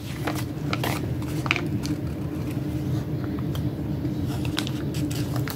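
Paper sticker sheets being handled and stickers picked off: scattered short rustles and light taps over a steady low hum.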